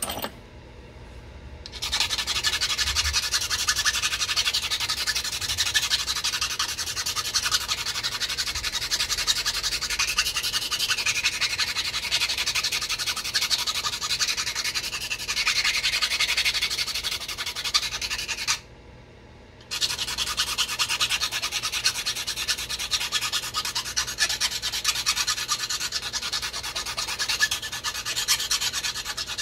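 Stone point's edge rubbed hard and fast against an abrading stone, a continuous rasping scrape made of rapid strokes. It starts about two seconds in, pauses for about a second two-thirds of the way through, then resumes.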